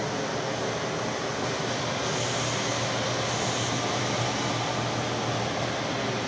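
Steady fan-like rushing noise with a low hum underneath, level throughout with no distinct knocks or clicks; it turns a little brighter and hissier for a couple of seconds midway.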